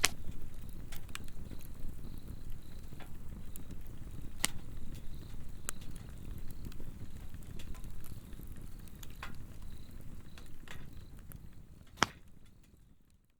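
Swedish torch log fire burning, with scattered sharp crackles and pops over a steady low rumble, the loudest pop near the end. Insects chirp faintly in a high, pulsing trill throughout, and the whole fades out at the very end.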